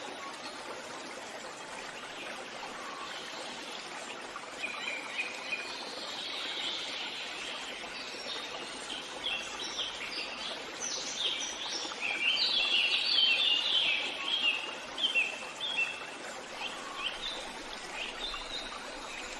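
Forest ambience: several birds singing short, high chirping phrases over a steady background hiss, the birdsong busiest in the second half.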